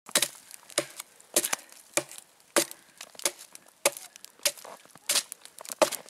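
Hatchet chopping into the side of a lying log, about ten sharp wood strikes at a steady pace of roughly one every half second or so.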